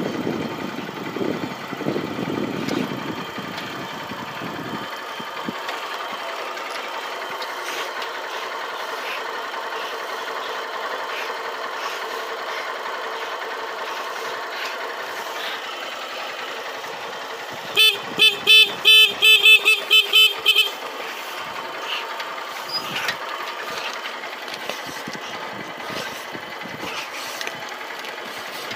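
Motorcycle engine running steadily, heavier for the first few seconds while moving. A little past halfway through, a horn is beeped about ten times in quick succession over roughly three seconds.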